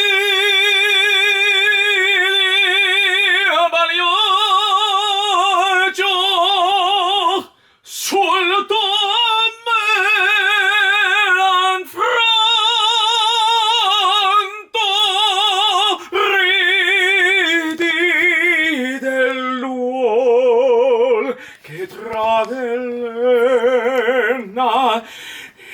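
A man singing opera, really loud, with a wide, even vibrato. He holds long high notes with short breaths between them, then moves down to lower notes in the last several seconds.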